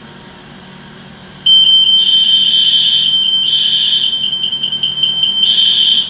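Building fire alarm sounder going off with a loud, steady high-pitched tone. It starts about a second and a half in and cuts off at the end. It is a test of the alarm's notification circuit, connected briefly at the panel, and reads about 90 dB on a sound meter in the hallway.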